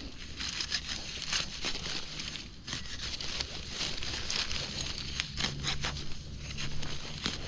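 Dry leaf litter and twigs crackling and rustling as someone moves and crouches in forest undergrowth, with irregular sharp crackles throughout.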